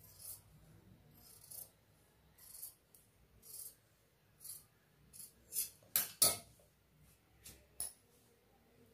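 Tailoring scissors cutting through blouse fabric, a series of short snips about once a second. About six seconds in there are two sharper, louder knocks.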